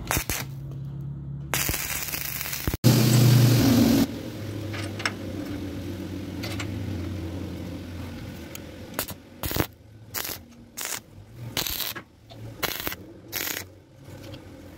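Stick arc welding on steel: a loud arc crackle and hiss from about one and a half to four seconds in, then a steady hum with faint crackle. From about nine seconds a run of short crackling bursts follows as brief welds are struck along the hinge.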